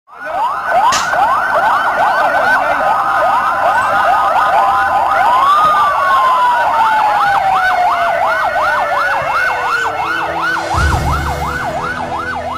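Several emergency sirens yelping together, their pitch sweeping rapidly up and down about three times a second, with one long wail sliding slowly downward in the middle. Near the end, low music comes in beneath them.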